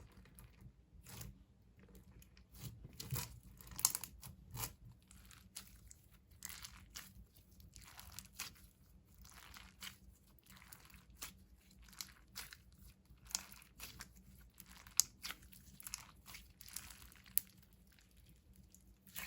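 Sugar bead slime being worked by hand: an irregular run of crunching crackles and small bubble pops, some sharper than others.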